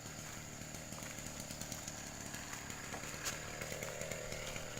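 STIHL backpack sprayer's small two-stroke engine running steadily.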